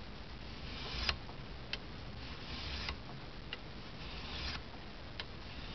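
Fine-toothed file rasping across the side of a Norwalk juicer cutter blade, in three or four slow strokes about a second and a half apart, with light clicks between strokes.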